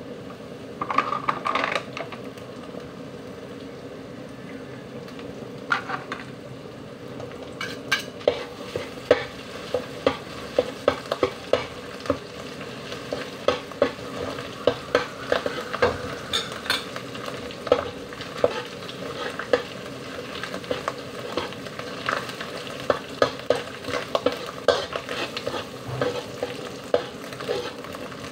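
Chopped aromatics and a seasoning paste sizzling in hot oil in a wok while a long metal spoon stirs and scrapes, clinking against the pan. The clinks come several times a second, busiest from about eight seconds in.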